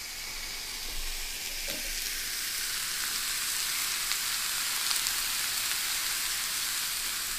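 Marinated pork chops sizzling on the ribbed plate of a round electric indoor grill: a steady frying hiss with an occasional faint crackle, growing a little louder over the first few seconds.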